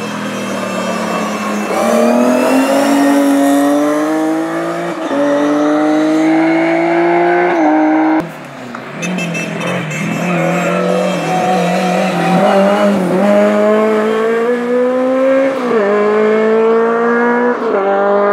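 Race car engines under full throttle, rising in pitch and dropping back at each upshift. The sound dips sharply about eight seconds in, then another run of rising revs and upshifts follows.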